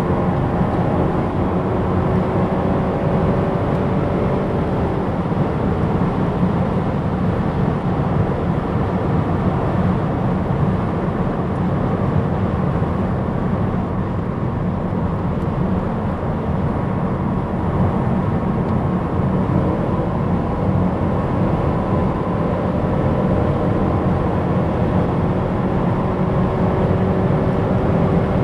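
Opel Insignia GSi at high autobahn speed. A steady rush of road, tyre and wind noise is heard, and the engine's tone climbs slowly as the car gains speed in a high gear, in the first few seconds and again near the end.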